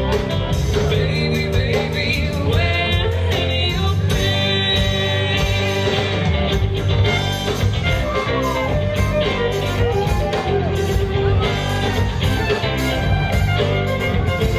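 A live rock band playing, with electric guitars, fiddle, bass and drums, and some singing.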